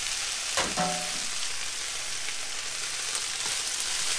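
Chicken and mixed vegetables in teriyaki sauce sizzling in a frying pan while being stirred with a spatula, with one brief louder sound just over half a second in.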